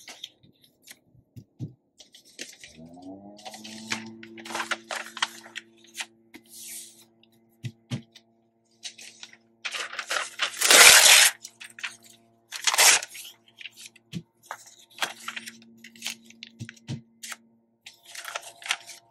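Old, brittle magazine paper being torn and handled, a series of short ripping and crinkling rustles, the loudest about halfway through.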